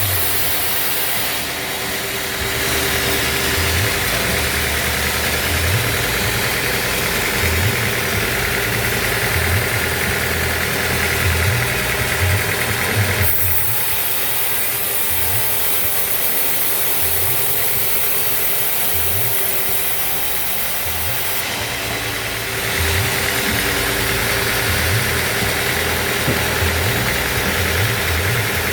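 Band sawmill running steadily, its note changing in stretches, getting brighter about two seconds in, duller about 13 seconds in and brighter again about 22 seconds in, with irregular low thumps underneath.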